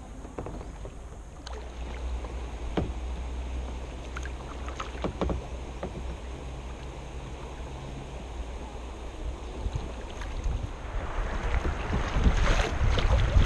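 Water around a kayak moving down a river, with a few short splashes, and wind buffeting the microphone, growing louder and gustier in the last couple of seconds.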